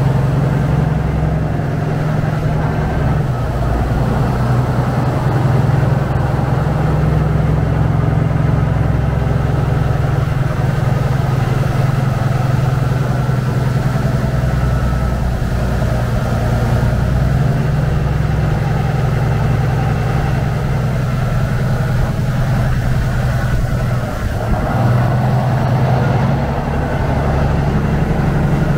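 Saen Saep canal boat's diesel engine running steadily under way, a loud low drone, with the rush of churning water from the wake.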